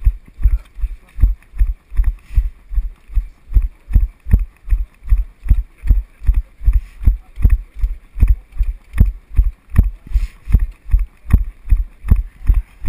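The wearer's own running footfalls jolting a body-worn GoPro: a steady, even run of low thuds, about two and a half to three a second, over a faint hiss.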